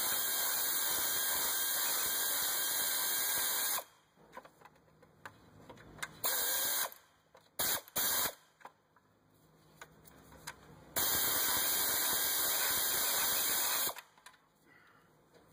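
Power ratchet spinning a socket on a bolt at the alternator, driving it in: one run of about four seconds, two short bursts around the middle, then another run of about three seconds.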